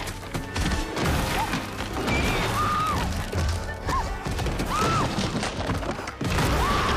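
Film action soundtrack: an orchestral score over a dense stampede mix of heavy thuds and crashes, with several short high cries.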